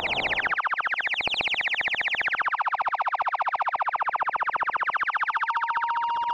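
iAbyssal iPad synthesizer app playing a rapidly pulsing tone, many pulses a second, while its resonant filter sweeps up and then slowly down. About five seconds in, a steady high tone joins the pulsing.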